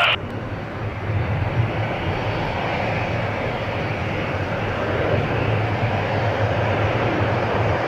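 Twin-engine widebody jet airliner's engines running steadily at high thrust during its takeoff roll down the runway.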